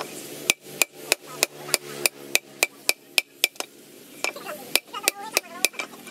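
Hammer blows on hot leaf-spring steel over an anvil, about three a second, each with a short metallic ring. The blows pause for about a second past the middle, then resume.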